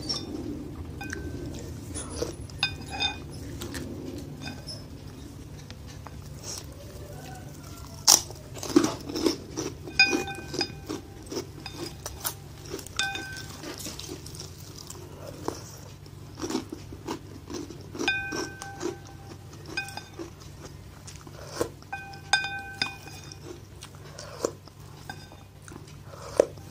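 Close-up eating sounds: chewing and crunching mixed with wooden spoon and wooden fork knocking and scraping on a ceramic bowl. Some knocks set the bowl ringing briefly; the loudest cluster comes about eight to ten seconds in.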